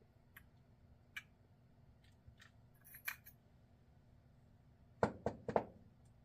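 Small metal parts of a baitcasting reel clicking and clinking as it is taken apart. There are scattered light clicks, then a quick run of four louder knocks about five seconds in.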